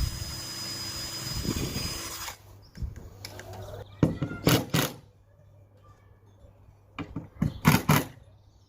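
Power drill running as it drills holes in timber, stopping a little over two seconds in; a few sharp knocks follow later on.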